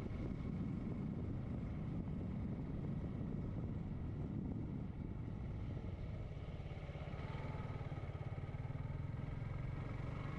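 Motorcycle engine running at a steady cruise, mixed with wind rushing over the helmet-mounted microphone; the low rumble settles slightly about halfway through.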